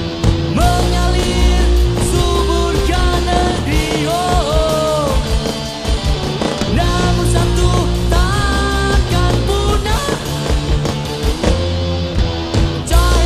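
A punk rock song played by a full band, loud and steady, with melodic lines that bend up and down in pitch over a thick low end.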